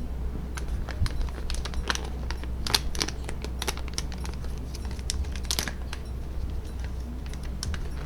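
A run of irregular light clicks and crinkles, densest in the middle and thinning out about six seconds in, over a steady low hum.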